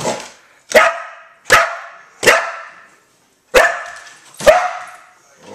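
Border Collie barking at flickers of light reflected across the floor: a run of sharp barks, about one every 0.8 s, with a short pause near the middle.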